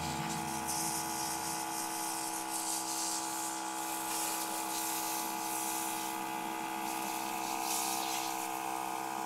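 Small electric water pump whining steadily as it drives water through a garden hose. Over it comes the hiss of water spraying onto a hanging deer carcass, which comes and goes.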